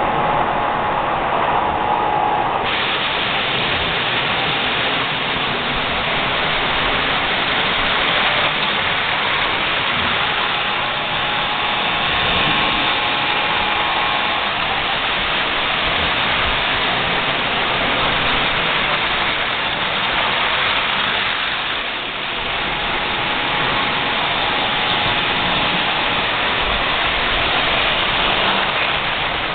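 Model trains running on a layout's metal track: a steady, dense clatter of wheels on rails with motor hum.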